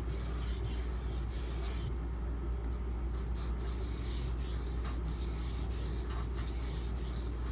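Knife blade of 8Cr13MoV steel being drawn back and forth over a coarse Beston 500 grit whetstone, a rasping scrape at about one and a half strokes a second, with a brief letup about two seconds in.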